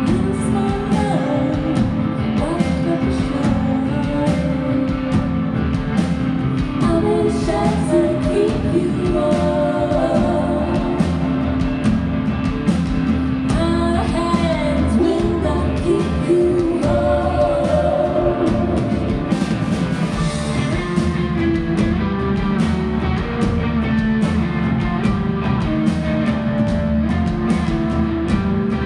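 Live rock band playing loud and steady: electric guitars and drum kit, with a singing voice over them.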